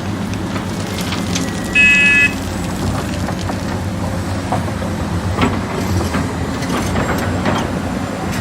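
A heavy vehicle's engine running steadily, with a short, loud high-pitched tone about two seconds in.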